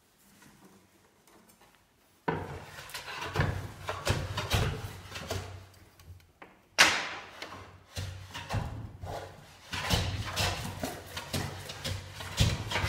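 Veritas bevel-up smoothing plane with a cast-iron body taking a series of strokes across a wooden board, its blade set with a wide mouth to cut heavier roughing shavings. Nearly quiet for the first two seconds, then stroke follows stroke, the sharpest and loudest starting about seven seconds in.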